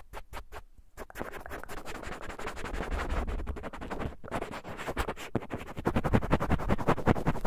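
Close-miked scratching and rubbing of a small ear-cleaning tool against a microphone's ear: a few separate clicks, then from about a second in a dense crackle of quick scratches that grows louder toward the end.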